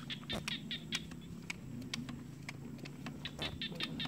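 Small birds chirping, short high calls repeated many times, with a few sharp clicks mixed in.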